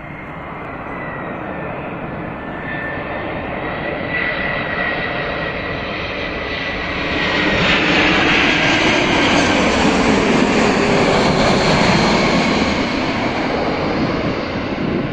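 Airbus A340-300 airliner on final approach, its four CFM56 engines at approach power: a steady jet rumble with a high whine that drops a little in pitch early on. It grows louder as the jet passes close by about halfway through, then eases a little near the end.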